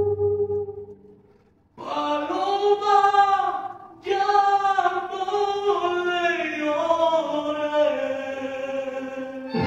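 A man singing mariachi-style, unaccompanied, into a microphone. A held note fades away, and after a brief pause he sings two long phrases, the second falling in pitch and ending on a long held note.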